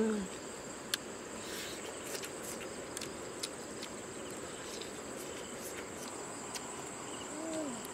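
Crickets chirring in a steady high drone, with a few small clicks and a short hummed "mm" from a person's voice near the end.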